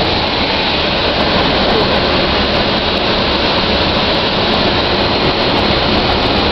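Steady road and engine noise of a moving bus, heard from inside the passenger cabin.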